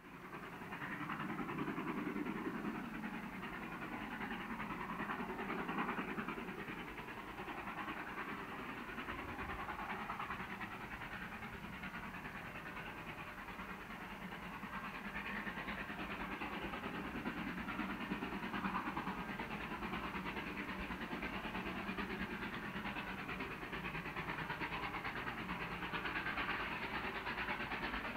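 Two Victorian Railways steam locomotives, R class R711 and K class K183, double-heading a train: the exhaust of both engines working under heavy steam, heard from a distance as a steady rush of noise.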